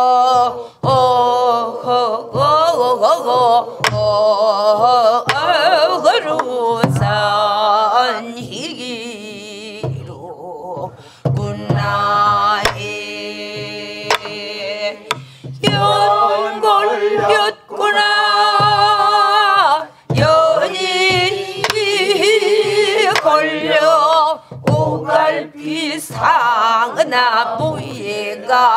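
Korean Namdo folk song sung with a heavy, shaking vibrato, accompanied by strokes on buk barrel drums. The singing drops softer for a few seconds about a third of the way through.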